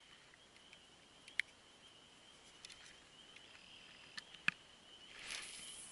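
Faint, steady high-pitched chorus of distant calling animals, with two sharp clicks and a short swell of hiss near the end.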